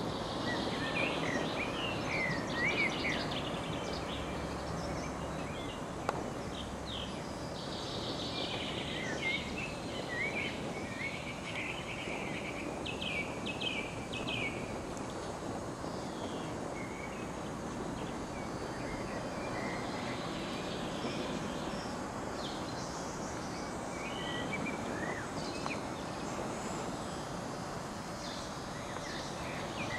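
Songbirds chirping and trilling over a steady background hiss of open-air ambience, the birdsong thickest in the first half and again near the end.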